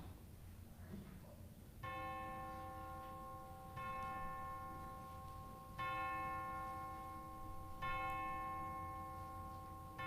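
A bell tolling on one note, struck about every two seconds, each stroke ringing on until the next; the first stroke comes about two seconds in, after a short lull.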